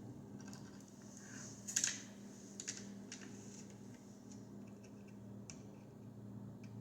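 Faint scattered clicks and taps of small tools and parts being handled while soldering a wire onto a circuit board, the sharpest about two seconds in, over a steady low hum.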